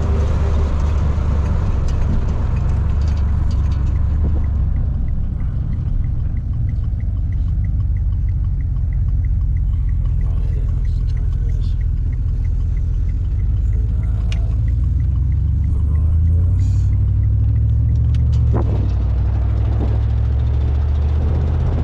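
A vehicle engine's steady low rumble, loud throughout. A faint, even ticking at about three a second runs through the middle of it.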